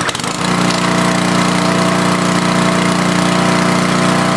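Small gas engine of a TEANDE 4200 PSI pressure washer just started, coming up to speed in the first half second and then running steadily.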